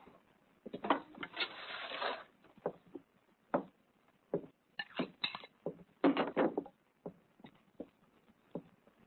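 A metal spoon scraping and clinking against a pan of beans in quick, irregular strokes, with longer scrapes about a second in and again around six seconds in.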